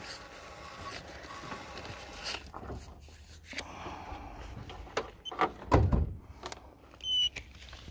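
Scattered small knocks and clunks, with a heavier low thump about six seconds in, and a short high electronic beep near the end.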